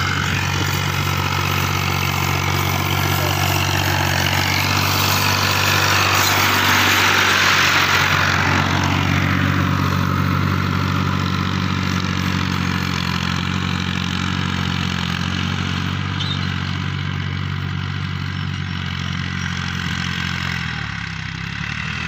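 Ghazi farm tractor's diesel engine running under load while pulling a tine cultivator through the field, passing close by and then pulling away; it is loudest around seven seconds in and grows quieter after about ten seconds.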